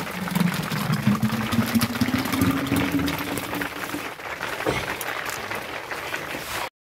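Hand-worked rope-and-stick butter churn: the churning stick twirls back and forth in the pot as the rope is pulled, a rapid run of knocks and swishes. A low, drawn-out tone runs under it for the first four seconds or so.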